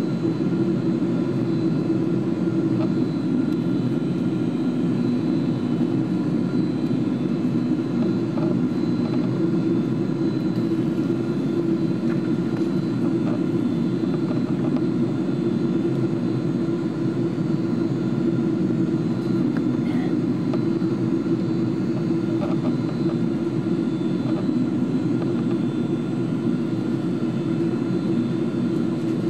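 Cabin noise of a Boeing 777-200 airliner in flight, heard from a window seat: the jet engines and the airflow over the fuselage make a steady, unchanging low rumble with faint thin whines above it.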